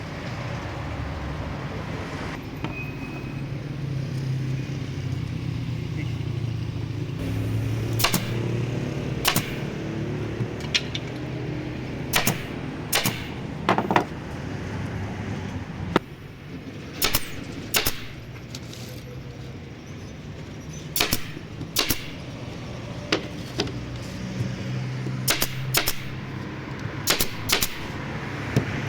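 Sharp knocks or clicks at irregular intervals, some close together in pairs, over a low steady hum.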